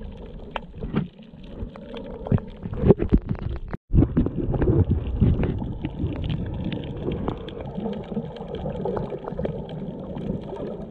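Underwater water noise heard through a submerged GoPro: a muffled low rumble and gurgle of moving water, scattered with sharp clicks and crackles. The sound cuts out completely for a moment just before four seconds in.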